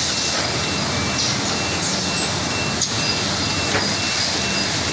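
Semi-automatic bag packing machine running with a steady mechanical noise and a high hiss, a faint repeating high-pitched tone, and two sharp clicks about three and four seconds in.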